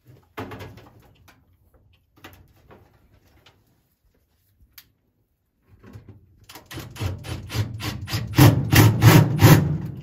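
Tool and sheet-metal clatter inside a gas furnace cabinet: a few scattered knocks and clicks, then from about two-thirds of the way in a quick run of loud taps, about four a second.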